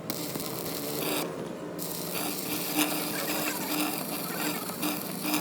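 Rhythmic mechanical clicking and rattling from a tool or mechanism, pulsing about two to three times a second.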